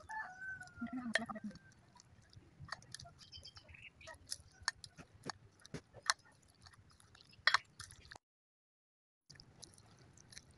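Plastic ladle stirring thick vegetable batter in a glass bowl: soft wet squelching with scattered small clicks of the ladle against the glass. The sound cuts out completely for about a second near the end.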